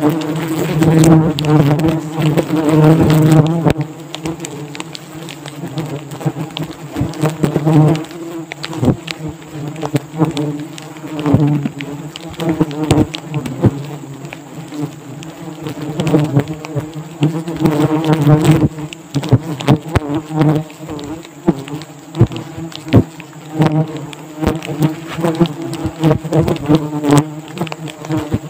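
A disturbed colony of wasps buzzing loudly and steadily around its nest, just cut down and stuffed into a woven plastic sack. Over the drone, the sack crinkles and rustles as gloved hands grip it and tie it shut.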